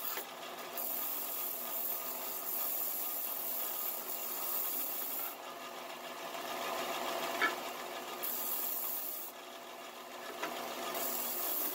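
Bench-top belt and disc sander running steadily, with the rasping hiss of a wooden block pressed against the sanding disc to grind a notch in its edge. The grinding lasts about the first five seconds and comes back in two shorter spells later, while the motor hum goes on underneath.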